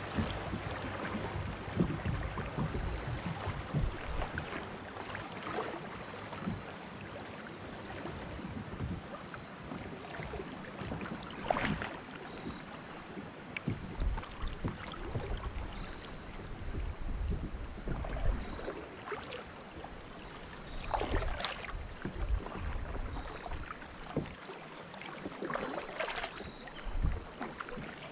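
Kayak being paddled down a shallow river: running water washing and lapping against the hull, with the dip and splash of double-bladed paddle strokes and a few sharper splashes now and then.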